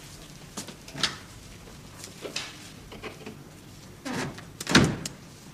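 A few light knocks and clicks, then a heavier thud near the end, typical of a door being shut.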